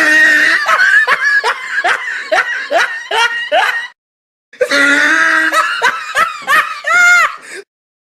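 Two recorded laughs played one after the other with a short silence between them. Each is a run of quick, rhythmic 'ha' pulses, about three a second. The second laugh ends on a drawn-out high note that rises and then falls.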